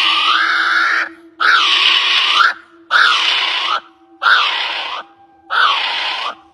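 A bird's harsh, rasping screeches, each about a second long, repeated five times with short gaps between them.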